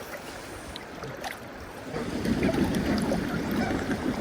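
River water and wind noise around a small boat drifting on the river, getting louder about two seconds in.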